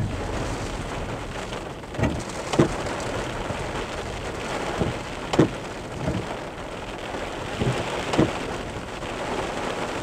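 Heavy rain drumming on a car's roof and body, heard from inside the cabin, with a steady hiss and several sharp knocks from harder hits.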